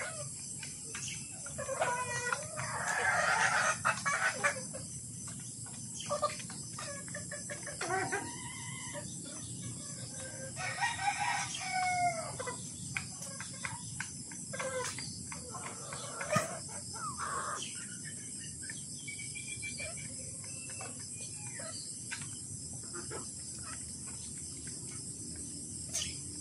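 Kelso gamefowl crowing and clucking, with several long crows in the first half and shorter calls scattered through the rest.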